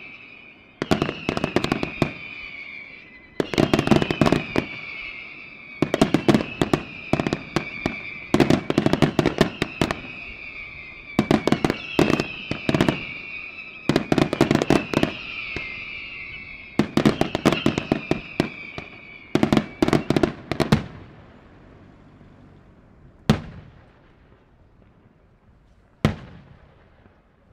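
Daytime fireworks display: shells bursting in rapid clusters of sharp bangs about every two and a half seconds, each cluster trailed by high whistles that fall in pitch. About two-thirds of the way through the barrage stops, leaving two single bangs spaced a few seconds apart.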